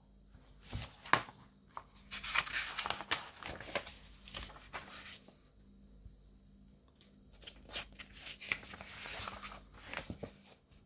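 Paper pages of a thin booklet being handled and turned, rustling in two spells with a quieter pause between them.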